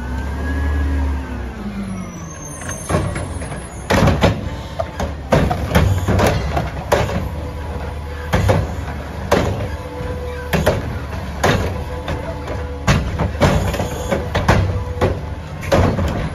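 Front-loading garbage truck's Curotto-Can automated arm picking up a yard-waste cart and emptying it. The engine revs up and back down at first, then a long run of sharp knocks, about one or two a second, as the cart is tipped and shaken out, over the steady hum of the running engine.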